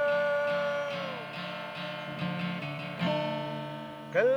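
A singer's held note trails off about a second in, leaving acoustic guitar strumming chords alone; the voice comes back in with the next line near the end.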